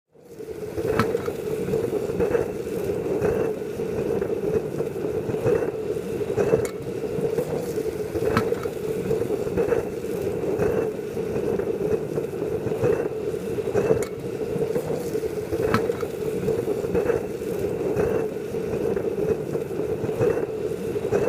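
Waste-oil burner stove running with its blower: a steady rushing noise over a constant hum, with irregular sharp ticks or pops about once a second.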